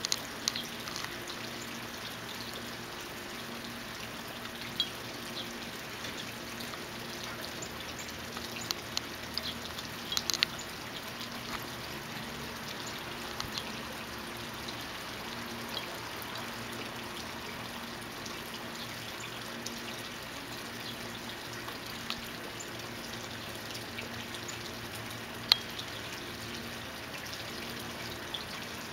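Steady outdoor hiss with a faint low hum, broken now and then by short, sharp, high chirps, a few bunched together mid-way and the loudest one near the end.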